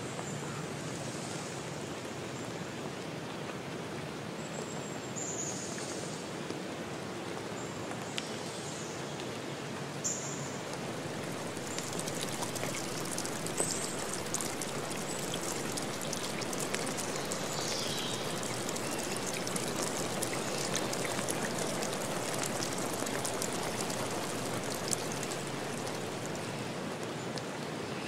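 Steady rush of splashing, trickling water with fine droplet ticks, growing a little denser and louder after about twelve seconds.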